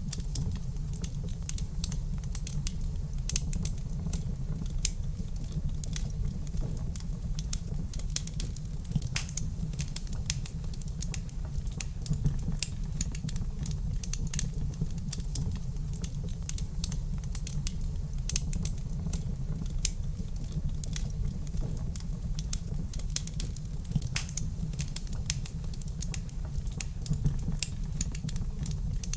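Wood fire crackling in a fireplace: steady irregular pops and snaps over a low rumble of the flames.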